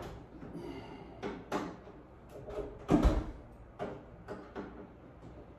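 A string of short, sharp knocks and clunks, about half a dozen, the loudest about three seconds in, from a microwave being handled and shifted against a cabinet.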